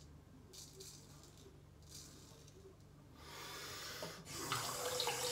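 C.V. Heljestrand straight razor scraping through lathered stubble in a few short strokes. About three seconds in, a water tap starts running and gets louder.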